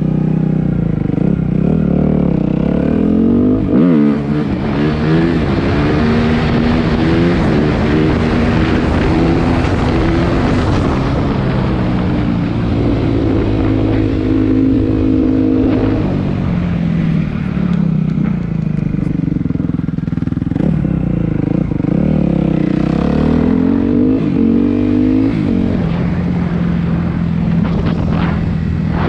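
Suzuki RM-Z250 motocross bike's single-cylinder four-stroke engine running under way, its pitch climbing and falling again and again as the rider accelerates and eases off, over a steady rushing noise.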